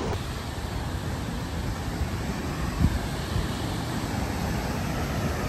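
Steady rushing roar of a waterfall, with one short thump about three seconds in.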